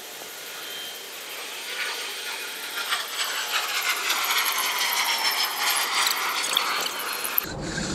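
Bow drill in use: a wooden spindle spun fast by a bow, grinding in the hearth board notch with a steady rasping and a faint high squeal now and then, growing louder as it goes. The friction grinds out the hot wood dust that is meant to form an ember.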